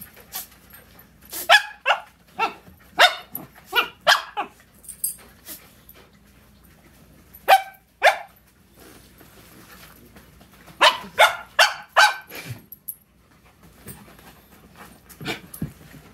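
Puppies barking during rough play: short, high-pitched yaps in runs of two to five, with quiet gaps between the runs.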